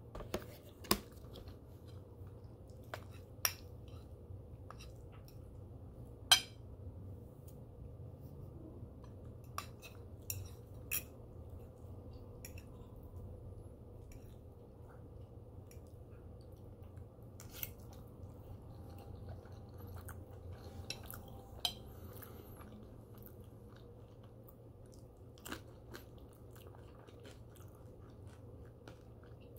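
Close-up chewing with a fork clicking against a ceramic plate about a dozen times, the loudest clink about six seconds in, over a steady low hum.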